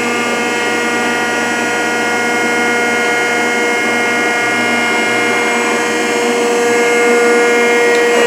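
Rockford hydraulic planer running, its hydraulic drive giving a steady whine of several fixed pitches over a mechanical hum.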